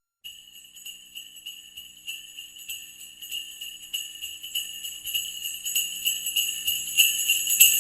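Sleigh bells jingling in a steady, regular shaking rhythm, growing gradually louder.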